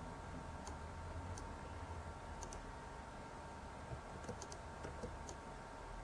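Scattered light clicks at a computer, in small groups over a few seconds, from mouse buttons and keys. Underneath is a faint steady low hum with a thin high tone.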